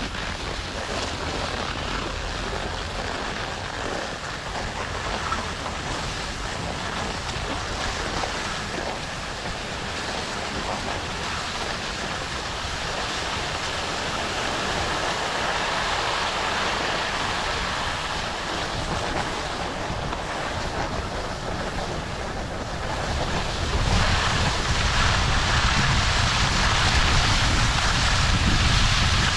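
Skis sliding and scraping over packed snow, with wind buffeting the microphone. The wind rumble grows louder about three-quarters of the way through.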